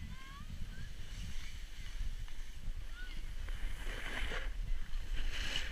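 Snowboard riding: wind buffeting the following rider's camera microphone in a steady low rumble, with snowboard edges scraping and hissing over snow, loudest about four seconds in and again near the end.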